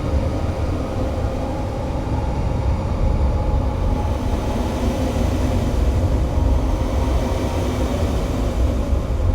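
Steady, dense low rumble with a few faint held tones above it, part of an experimental noise or drone recording.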